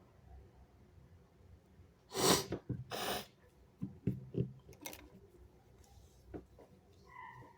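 A person's wet sneeze in two loud noisy blasts about two and three seconds in, followed by several shorter, quieter breaths and noises.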